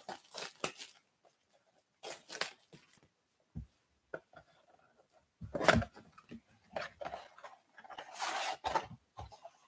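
Clear plastic shrink wrap crinkling and tearing as it is stripped off a cardboard trading-card blaster box, in short scattered bursts. Then the cardboard box is torn open, with a louder tearing crackle a little past halfway, and more rustling of cardboard and wrapper after it.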